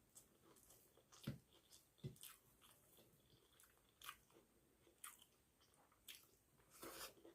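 Faint close-up eating sounds: soft, wet chewing and mouth smacks and clicks, about one a second, from someone eating rice with fish curry.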